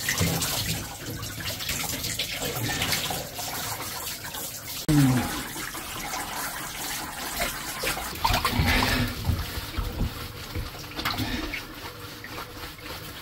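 Running water splashing over a Samoyed's coat during its bath. About five seconds in comes a short falling voice-like sound, the loudest moment.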